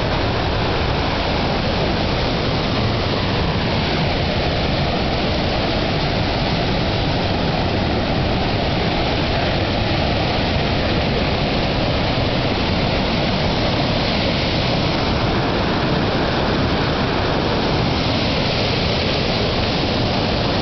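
Swollen mountain creek, high with winter runoff, rushing in white water over boulders. A steady, loud noise of rushing water that never changes.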